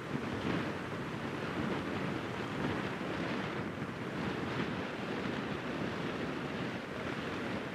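Wind buffeting the microphone outdoors, a steady, gusting rush with no distinct events.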